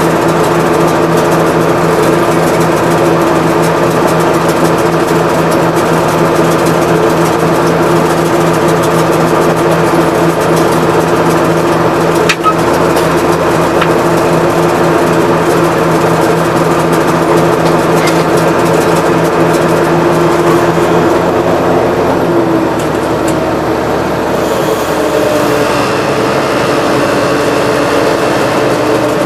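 Tractor engine running steadily, heard from inside the cab, with one brief click about 12 seconds in. About 22 seconds in the engine note drops a little lower and slightly quieter.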